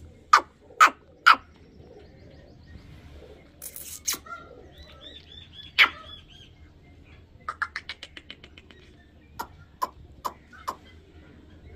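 Short, sharp bird calls from birds kept in a pen: three loud calls in quick succession at the start, single calls a few seconds later, a rapid run of about ten clipped calls past the middle, and four more near the end. A brief high chirping trill comes about five seconds in.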